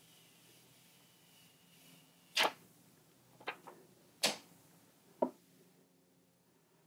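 Plastic screen-protector film being peeled off a GPS cycling computer's screen, a faint hiss, then five short rustles as the film and unit are handled.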